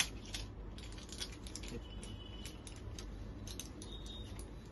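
Faint small clicks and crinkles of hands handling a foil tablet blister strip over a low hum, with a sharper click at the very start.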